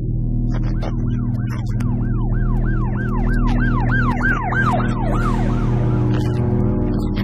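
Police siren sound effect, a fast yelp of rising-and-falling whoops about three a second, over steady background music; the siren dies away about five and a half seconds in.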